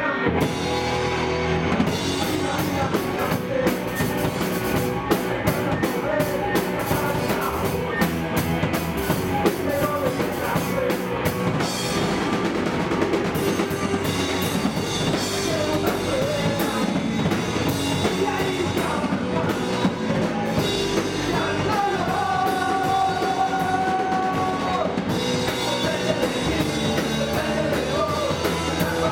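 Punk rock band playing live: electric guitars and a drum kit with steady cymbal strokes, under a sung vocal.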